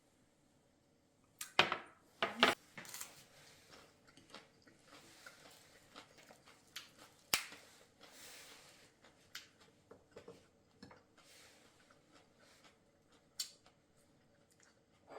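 Kitchen clatter of dishes and utensils: two loud knocks about a second and a half and two and a half seconds in, then scattered lighter clicks and taps, with one more sharp click near the end.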